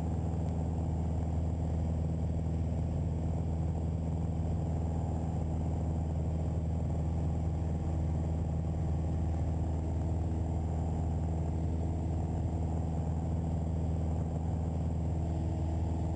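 Steady drone of a Piper PA-28-181 Archer's four-cylinder Lycoming O-360 engine and propeller, heard inside the cabin at a cruise power setting of about 2300 rpm.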